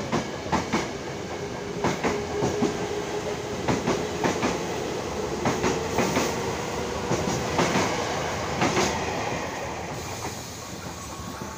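Electric commuter train cars rolling past, their wheels clacking over rail joints in repeated pairs and small groups, over a steady electric hum. The clacking dies away near the end as the last cars pass.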